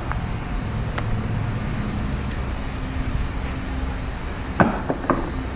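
Steady mechanical hum and noise, with a few sharp knocks near the end.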